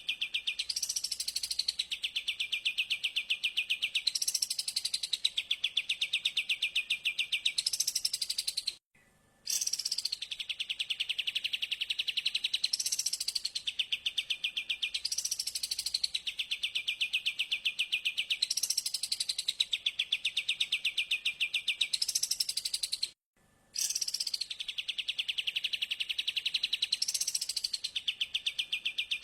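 Recorded songbird call played on a loop as a mastering lure for cage birds: a fast, dense chattering trill with a rising sweep every one and a half to two seconds. It drops out briefly twice, about 9 and 23 seconds in, where the recording restarts.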